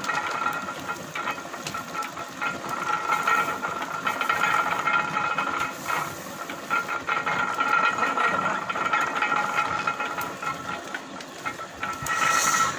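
Engine-driven sugarcane crusher running steadily: a constant machine drone with a steady high tone and rapid clatter.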